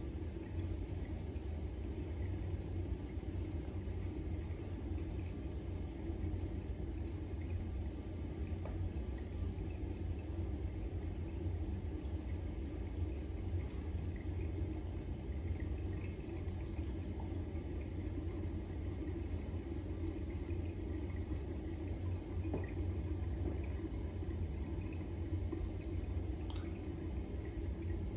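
Steady low rumble of background noise that holds even throughout, with a few faint soft ticks near the end.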